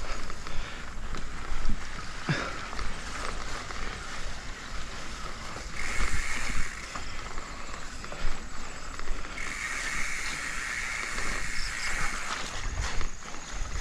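Mountain bike rolling over a grassy dirt singletrack: tyres brushing through grass, irregular knocks and rattles from the bike over bumps, and wind rumbling on the handlebar camera's microphone.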